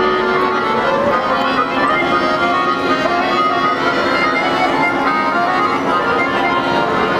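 Show soundtrack music played over loudspeakers: held chords of many tones at a steady level.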